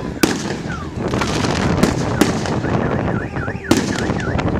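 Fireworks salute going off: several sharp bangs over a continuous crackle, with short whistling glides near the end.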